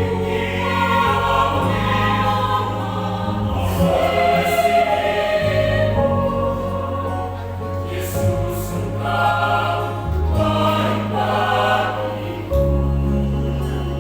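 Church choir singing a hymn in parts, over held low bass notes that change every few seconds.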